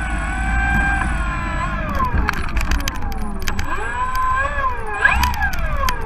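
Radio-controlled model airplane's motor heard up close, revving up and down as it taxis: its pitch falls, holds, then rises and falls several times, with a sharp rise about five seconds in followed by a long fall. Scattered clicks and a low rumble run under it.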